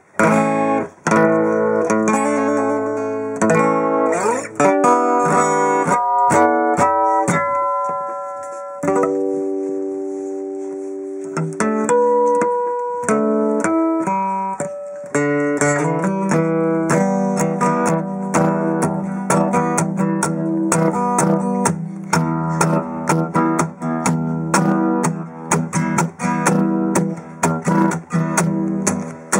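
Martin SWDGT solid-wood, gloss-top steel-string dreadnought acoustic guitar being played with plucked notes and chords. A chord is left ringing and dies away about nine seconds in. From about sixteen seconds it settles into a steady, busier pattern with fuller bass.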